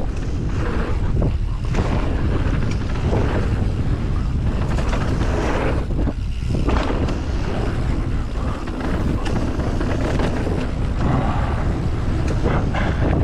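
Wind buffeting a GoPro microphone and knobby tyres rolling over a dirt trail on a fast mountain bike descent, with scattered knocks and rattles from the full-suspension bike.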